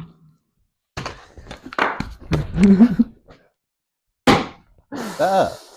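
Scuffling and knocking, then a sharp, loud thunk a little over four seconds in, followed by a short drawn-out vocal cry.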